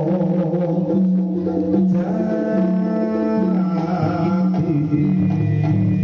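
Live Javanese jaranan-style ensemble music: steady hand drumming under held melody lines.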